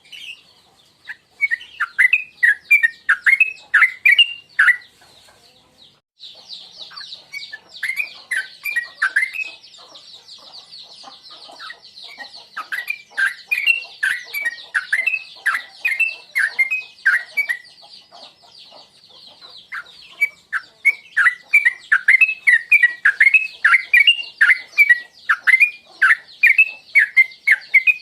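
Yellow-vented bulbul (trucukan) singing in rapid bouts of quick, bubbly downward-sweeping chirps, four bouts with short pauses between them. A steady high hiss runs behind from about six seconds in.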